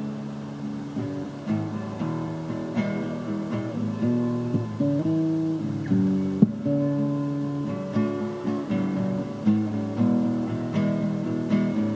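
Acoustic guitar strummed, the chords changing every second or so, with a sharp accented stroke about halfway through.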